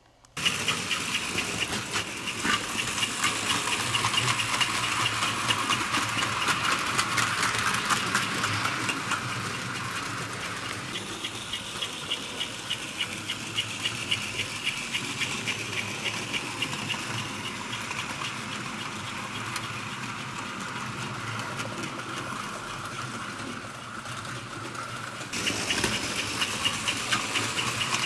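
A Fleischmann HO tinplate model train running: a small electric motor whirring with a fast, steady run of clicks. It starts suddenly and gets louder again near the end.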